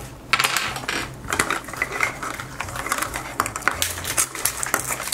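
Rustling and tearing of the printed wrapper being peeled off a Zuru 5 Surprise Mini Brands plastic capsule, with many small clicks and taps of hard plastic. There is a louder rustle about a third of a second in.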